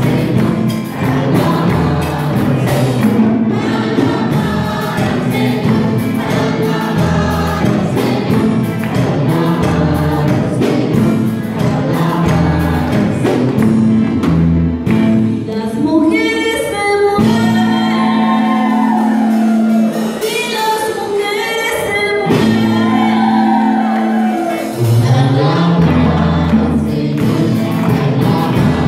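Live gospel worship music: women singing lead into microphones with a congregation singing along, over a band with bass. From about 17 s to 22 s the bass drops away, leaving a held chord under the voices, and the full band comes back near the end.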